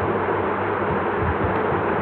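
Steady, loud hiss with a low hum underneath, unchanging throughout, with no distinct events.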